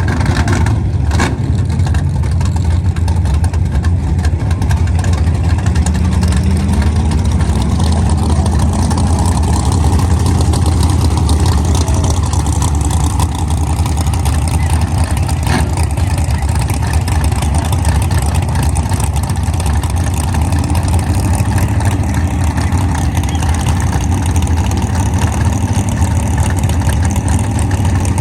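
Car engine running steadily with a loud, constant low drone and no revving.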